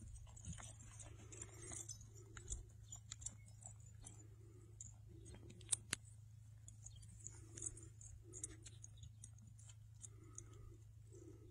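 Near silence with faint, soft thuds of a horse's hooves on dry dirt, coming in uneven groups, over a low steady hum and a few small clicks.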